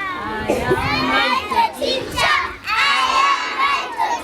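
A crowd of young children shouting together in high voices, in two loud stretches with a short break in the middle.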